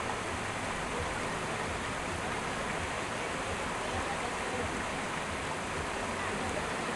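River water rushing over rocks in shallow rapids: a steady, unbroken rush.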